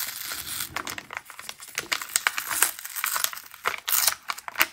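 Small advent-calendar gift bag being handled and opened by hand, its packaging rustling with irregular crackles.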